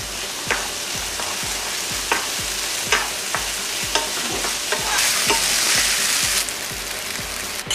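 Food frying in a pan, sizzling steadily while it is stirred with a wooden spoon, with scattered knocks of the spoon against the pan. The sizzle grows louder for a moment about five seconds in.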